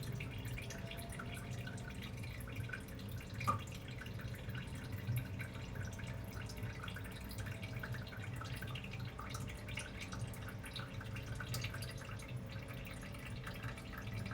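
Bath water dripping and lightly splashing, with many small drops scattered throughout over a steady low hum. There is one brief, sharper sound a few seconds in.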